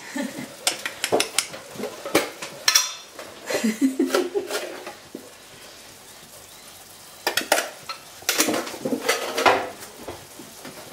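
Kitchenware clattering: scattered sharp clinks and knocks of metal containers and utensils against a frying pan, with some stirring, and a quieter stretch about halfway through.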